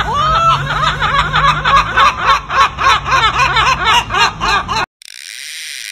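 Two gulls giving their laughing long call: a drawn-out rising first note, then a rapid run of short 'ha-ha-ha' notes, about six a second, over a steady low hum. The calls cut off suddenly near the end, followed by a brief hiss.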